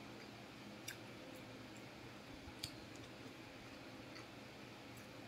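Quiet eating sounds as food is picked up from a plate by hand and chewed: a few faint, separate clicks, the clearest about a second in and just past the middle.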